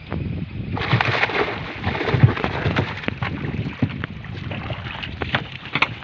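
Water splashing and dripping off a cast net as it is hauled up out of the river with fish caught in the mesh. The splashing starts about a second in and goes on as a dense patter of many small splashes and drips.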